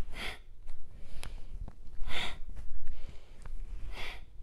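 A woman's forceful breaths through the nose during yoga side bends: three short, sharp hissing breaths about two seconds apart, the pumping breath that builds heat in a detox flow.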